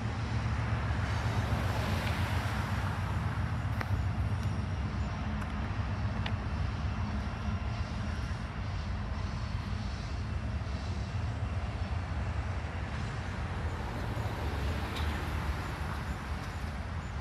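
Long freight train rolling past, a steady low rumble. Passing road traffic swells louder about two seconds in and again near the end.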